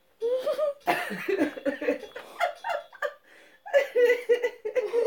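A woman laughing hard in fits and giggles, pausing briefly about three seconds in before laughing again.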